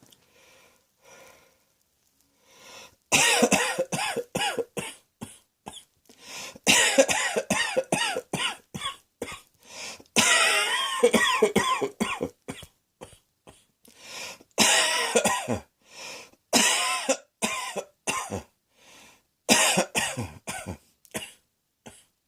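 A person coughing in repeated fits of rapid hacking coughs, separated by short pauses. Only faint breaths for the first few seconds, then the coughing starts about three seconds in.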